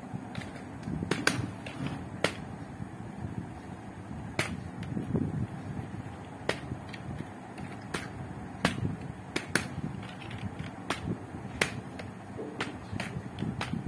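Computer keyboard keystrokes: irregular sharp clicks, some in quick pairs, as short lines of code are typed, over a steady low room hum.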